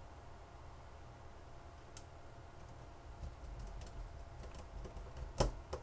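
Scattered small clicks and ticks of a precision screwdriver and tiny screws being fitted into an LG Xenon's frame, the sharpest click near the end.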